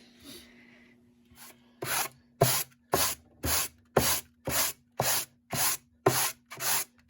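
A piece of pallet wood being sanded by hand in even back-and-forth strokes, about two a second, starting about two seconds in.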